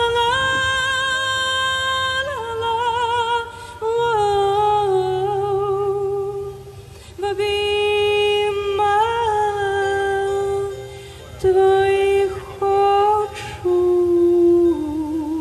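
Woman singing a wordless melody in long, held notes with vibrato, in phrases separated by short breaths.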